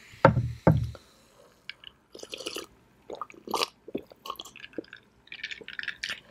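Close-miked drinking from a glass jar: two loud, deep gulps near the start, then a run of small wet sips, swallows and mouth clicks.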